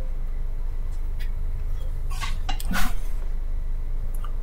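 Police scanner radio between transmissions: a steady low hum with a few crackles and short noise bursts about two to three seconds in.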